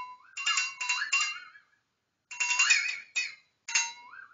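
Flexatone shaken in three or four short bursts, its beaters rattling against the bent metal blade in a ringing note that slides upward in pitch within each burst, with brief gaps between them.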